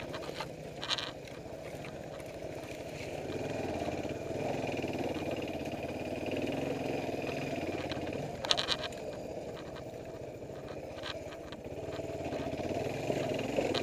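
Suzuki DR350 single-cylinder four-stroke enduro engine running on a rough trail, its revs rising and falling, with a few sharp knocks, the loudest about eight and a half seconds in.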